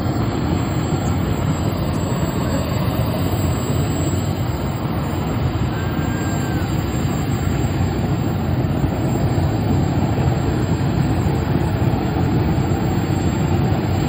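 Small gas-turbine jet engine of a mini jet truck running steadily at high power with its afterburner, blasting its exhaust into a bonfire. The sound is a loud, unbroken rush, heaviest in the low end.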